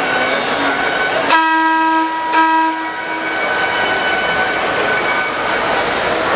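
A train horn sounds two short blasts about a second apart, each a steady chord, over steady background noise.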